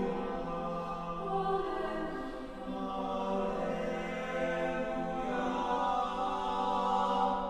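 A cappella choir singing a slow piece in long held chords that shift to new harmonies several times.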